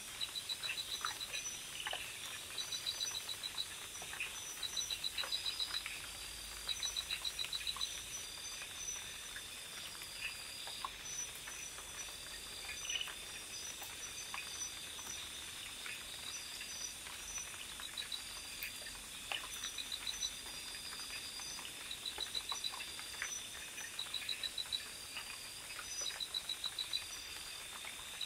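Night insects chirping in short trains of rapid high-pitched pulses that repeat every second or two over a steady high whine, with faint scattered clicks.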